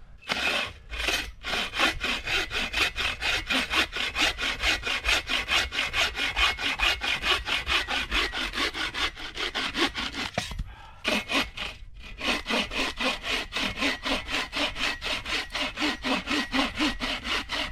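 Hand saw cutting through wood in quick, even back-and-forth strokes, with a short pause about ten seconds in before the sawing resumes.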